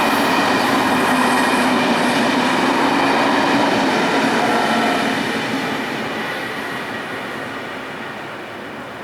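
Electric multiple-unit commuter train passing, loud at first, then fading steadily from about five seconds in as it moves away.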